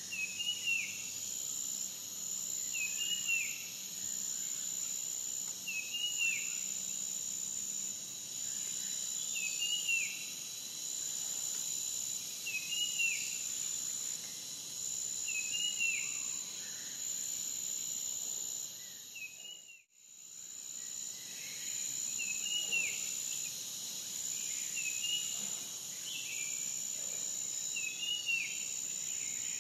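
Forest ambience: a steady, high-pitched insect trill, with a bird repeating the same short call every two to three seconds. The sound dips out briefly about two-thirds of the way through.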